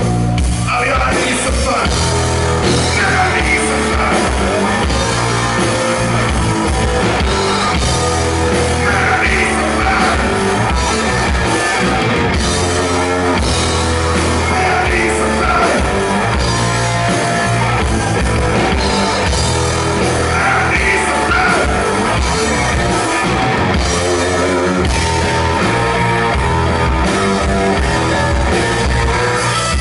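A live rock band playing a song: electric guitar, bass guitar and drum kit, with a sung vocal over them.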